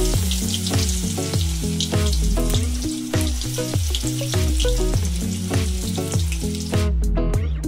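Batter-coated bhetki fish fillets sizzling as they fry in hot oil in a kadai, under background music with a steady bass line. The sizzle cuts off suddenly near the end, leaving only the music.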